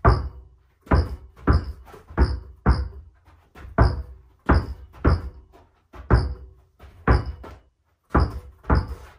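A basketball dribbled hard on a carpeted floor: sharp bounces about two a second, with a couple of short pauses where the ball goes between the legs or behind the back.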